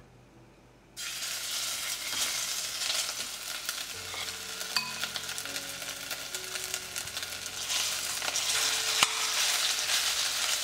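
Marinated chicken pieces going into hot oil in a stainless steel pan: the oil starts sizzling suddenly about a second in and keeps sizzling, with a few sharp clicks of a spoon against the pan and bowl.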